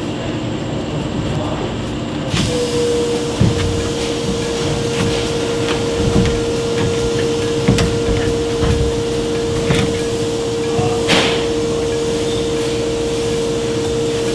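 A steady mechanical hum, joined about two and a half seconds in by a constant tone, with irregular knocks and clicks scattered through it.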